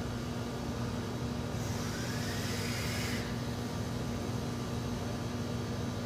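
A vape box mod firing a dual-parallel 24-gauge coil at 0.45 ohm and about 180 watts, powered by a 3S LiPo, during a long draw: a high hiss of air and vapour with a faint rising whistle, starting about a second and a half in and lasting about a second and a half. A steady low hum runs underneath.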